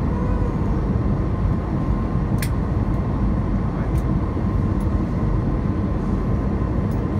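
Steady cabin noise of an Airbus A320 on approach to landing, heard from a seat beside the engine: an even rumble of the engine and airflow with a faint steady whine. A couple of faint clicks come about two and a half and four seconds in.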